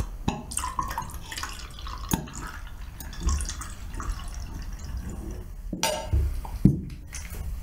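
Wine being poured from a glass bottle into wine glasses. Several sharp clinks and knocks of glass on glass and on the table come through it.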